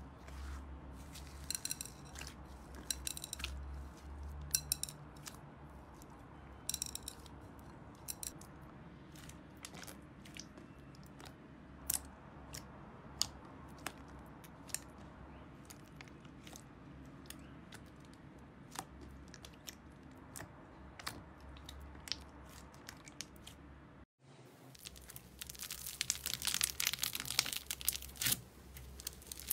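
Thick glossy slime squeezed and kneaded by hand, giving scattered sharp sticky clicks and pops. About 24 seconds in, after a brief break, a hand presses into a bowl of white foam beads, making a dense crackling crunch that grows louder.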